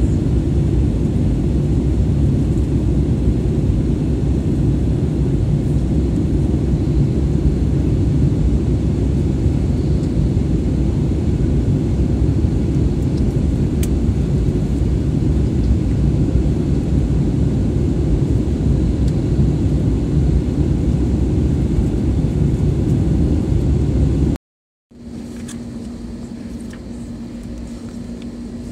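Steady engine and airflow noise inside a jet airliner's cabin in flight. It cuts off abruptly about 24 seconds in, giving way to a quieter cabin hum with a steady low tone while the plane is on the ground.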